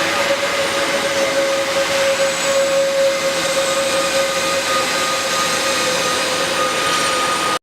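Industrial machinery running steadily: an even, loud rushing noise with a steady mid-pitched whine through it. It cuts off abruptly at the end.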